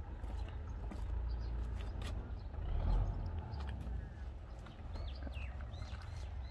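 Small birds chirping now and then, more often in the second half, over a steady low rumble, with scattered light clicks and rustles.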